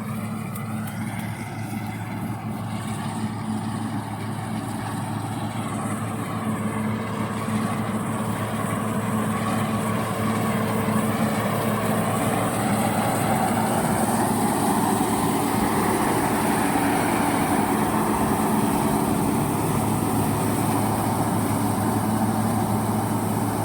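Lovol combine harvester running steadily, its engine and machinery growing louder over the first ten seconds or so and then holding steady.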